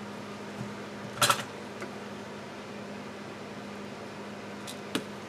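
Steady low hum with a faint hiss while a soldering iron and solder wire are brought to a wire end to tin it. There is a sharp double click about a second in and a smaller click near the end, as the tools are handled.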